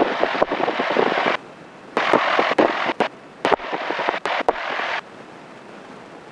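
Crackling static over the airplane's headset intercom, cutting in and out in three bursts laced with sharp clicks, then dropping to a low steady hiss about five seconds in.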